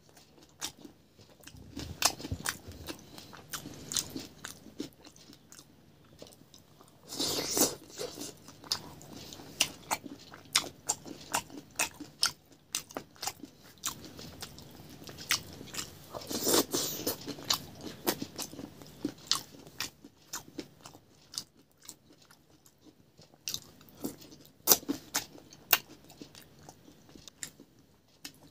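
Close-miked eating: a person chewing with lips smacking, crunching bites and many sharp, wet mouth clicks. Louder bouts of crunching come about a quarter of the way in, just past halfway and again near the end.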